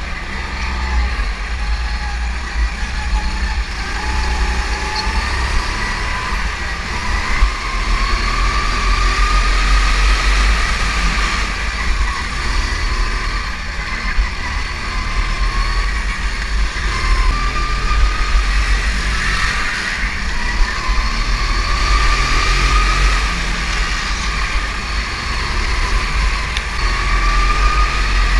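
Go-kart engine running hard under the seat, its whine rising and falling over and over as the throttle goes on and off. A heavy low rumble of wind and vibration on the onboard microphone lies under it.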